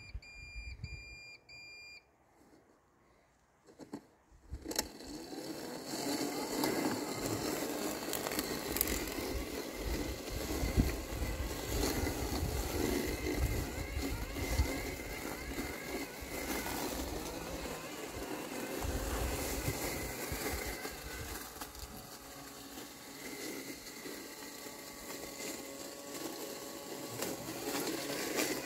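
LandXcape LX790 robotic lawn mower: a quick run of short electronic beeps, then after a brief pause a click as it starts up. Its blade and drive motors then run steadily with a faint whine as it cuts through tall grass and weeds.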